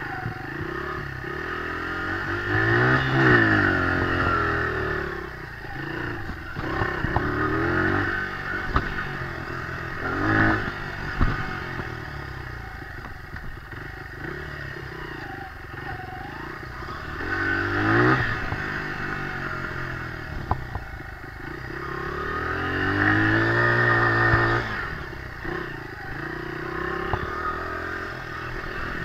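Dirt bike engine riding a trail, revving up and easing off repeatedly as the throttle opens and closes, with scattered knocks and rattles.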